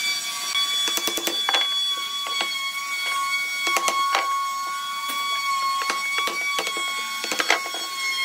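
Wooden blocks knocked and tapped with a wooden mallet as they are fitted together, a dozen or so sharp knocks at uneven intervals, over a steady high-pitched whine.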